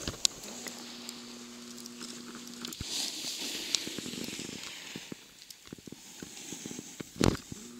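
Snowboard sliding and scraping over fresh snow, with scattered clicks and a louder knock near the end.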